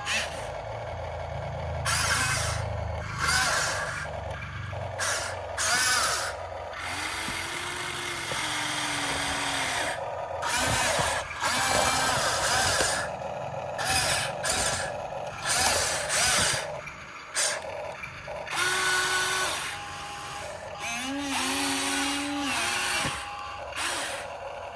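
RC excavator working, its motors whining and rising and falling in pitch as the arm and bucket move, with repeated short scrapes and clatters of rocks.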